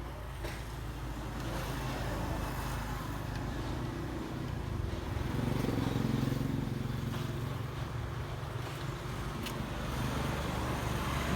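Road vehicle noise: a steady low rumble that swells about five to seven seconds in, with a few faint clicks.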